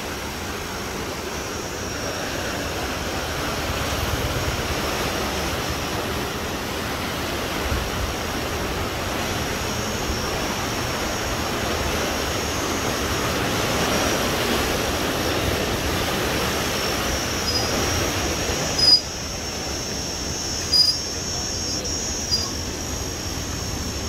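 Steady rush of canal water flowing through the gates of a canal head regulator. About 19 seconds in it drops away, and a few short sharp knocks follow.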